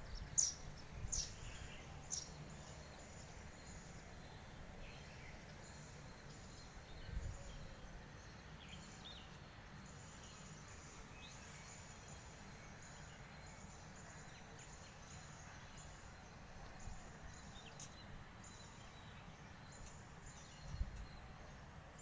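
Sparrows chirping now and then, most clearly in the first couple of seconds, over a steady low background rumble. There are two soft bumps, about seven seconds in and near the end.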